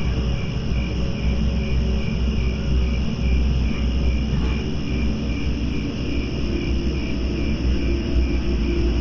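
Crickets chirping in a steady, regular pulse over a continuous low rumble: a nighttime insect chorus.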